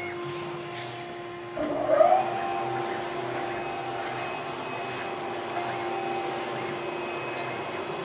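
CNC drilling machine running steadily with a whining hum as it begins drilling holes in a conveyor belt. About a second and a half in, it gets louder, with a brief wavering in pitch, then carries on at the higher level.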